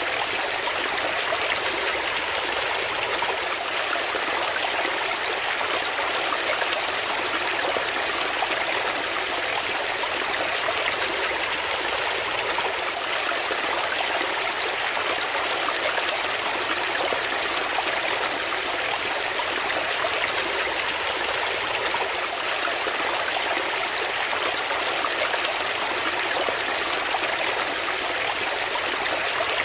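Shallow brook running and splashing over rocks: a steady, even rush of water with little low rumble.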